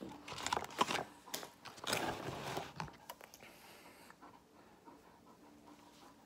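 A person chewing a big mouthful of soft burger, breathing hard through it in two bursts over about the first three seconds, then chewing more quietly with small wet mouth clicks.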